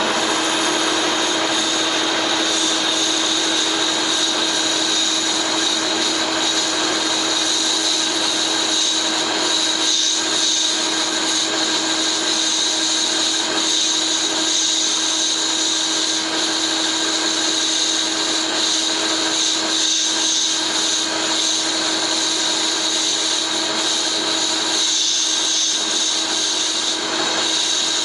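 Metal lathe running steadily while a cemented carbide tool takes a light hand-fed cut of about ten thousandths across a flat belt pulley. The sound is a steady hum under a continuous hiss of the cut.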